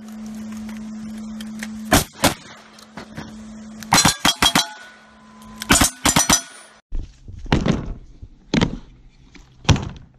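Gunshots: two single shots, then two quick strings of several shots with a metallic ring, then three more separate sharp reports.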